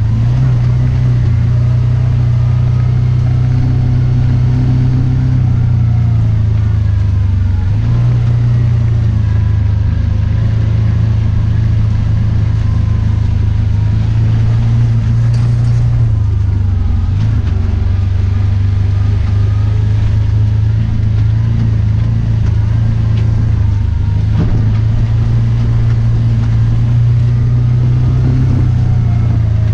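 Kawasaki Teryx4 side-by-side engine running steadily as it drives a dirt trail, heard from inside the open cab. The engine note dips and comes back up twice as the throttle eases and opens again.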